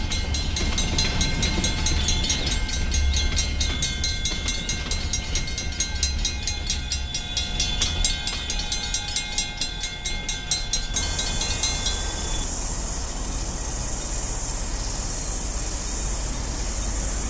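Level-crossing bell ringing rapidly and steadily over the low rumble and clatter of KiwiRail container wagons rolling across the crossing; the ringing continues after the wagons have cleared. About two-thirds of the way through, the sound switches abruptly to a steady rush of wind on the microphone over a low rumble.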